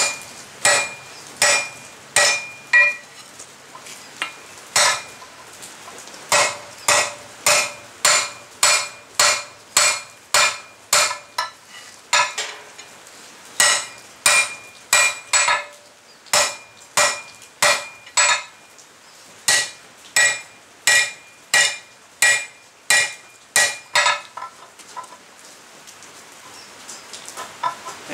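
Heavy hammer striking a red-hot steel flat bar on an anvil, at about two blows a second in runs with short pauses, some blows leaving a brief ring. The bar is being necked down at a marked point, toward about half its thickness. The hammering stops about 24 seconds in.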